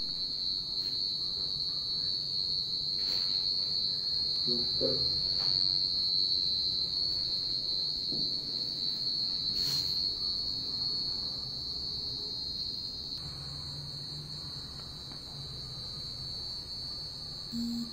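A steady, high-pitched insect drone, with a few faint knocks and handling bumps.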